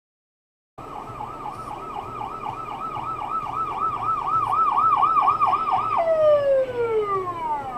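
Ambulance siren in a fast warble, about four cycles a second, growing louder as the ambulance approaches and passes. Near the end it glides down in pitch and fades.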